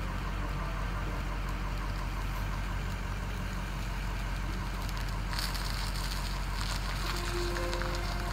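Car engine running with a steady low rumble; a hiss comes up about five seconds in.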